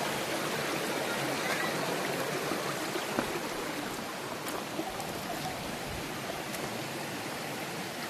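Stream water rushing steadily over rocks, with a few faint clicks.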